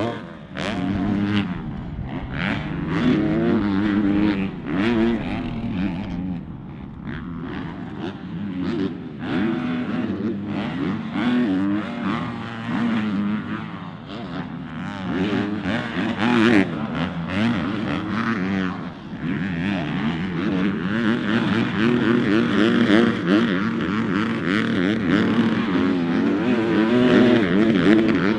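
Dirt bike engine revving hard and backing off again and again, its pitch climbing with each burst of throttle and dropping as the rider rolls off, as it is ridden around a supercross track.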